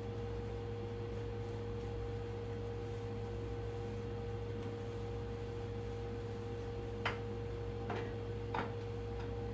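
A steady hum with one constant tone, and three light knocks less than a second apart near the end.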